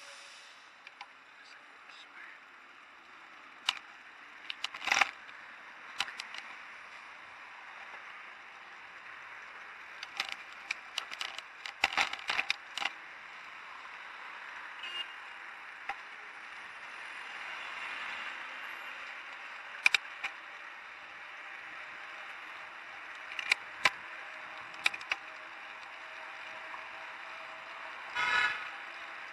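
Bicycle ride heard from a handlebar-mounted camera: steady street and wind noise with sharp clicks and rattles of the bike and camera mount jolting over bumps, and a brief pitched sound near the end.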